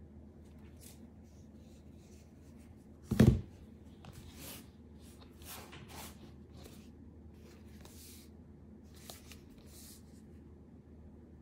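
A slim cardboard product box is set down on a desk mat with one sharp thump about three seconds in, followed by soft, short rubs and scrapes as hands slide it, tap it and pick it up.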